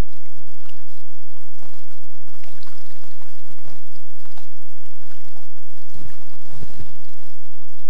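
Kayak paddle strokes in lake water: irregular splashing and dripping from the blades, with heavier sloshing about six seconds in.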